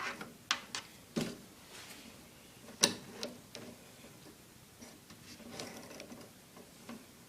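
Scattered clicks and taps from hands working the paramotor cage, hooking the netting's rings and wrapping its cord, with the sharpest knocks about a second in and near three seconds.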